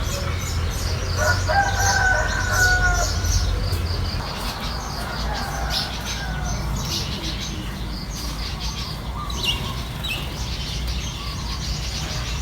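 A rooster crows once about a second in, a call of nearly two seconds, while small birds chirp throughout over a steady low rumble.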